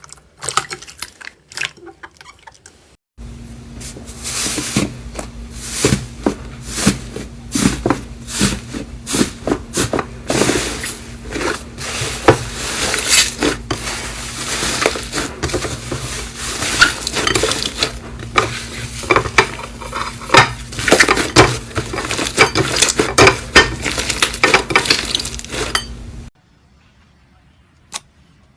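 Slime being stirred and worked with a utensil in a bowl: rapid, irregular clinks and sharp clicks of utensil against dish, over a steady low hum. The sound starts abruptly about three seconds in and stops abruptly a couple of seconds before the end.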